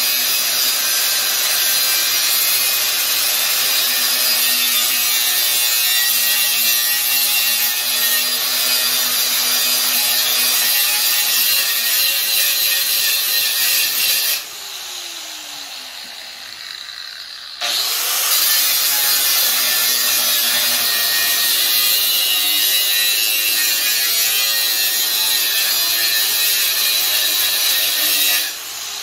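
Makita angle grinder grinding down the steel welds on a shopping cart's basket mounts, a steady loud hiss of the disc on metal. About halfway through it comes off the metal and winds down with a falling whine for a few seconds, then bites in again. Near the end it comes off and winds down once more.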